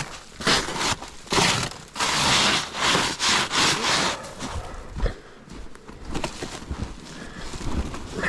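Footsteps crunching through snow, a quick run of loud crunches that stops about four seconds in, followed by quieter shuffling and a few light knocks.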